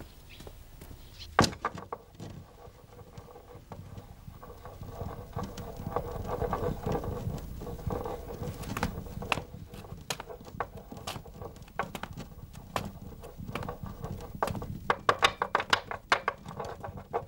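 Spinning top whirring on a xiangqi board, with a sharp click about a second in and a run of quick light clicks near the end as it rattles across the board.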